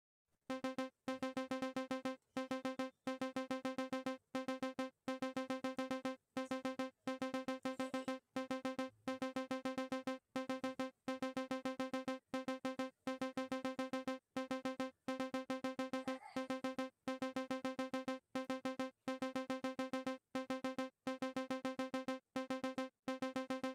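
Live-coded electronic music: a synthesized, keyboard-like note on one pitch repeated in a fast stuttering pulse, broken by short gaps about once a second.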